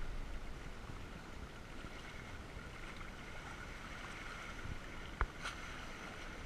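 Water rushing and splashing along the hulls of a Hobie trimaran sailing kayak under sail, a steady hiss, with a single sharp knock about five seconds in.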